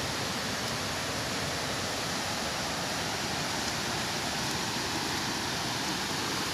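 A rain-fed hillside stream cascading down rocks: a steady, even rush of falling water.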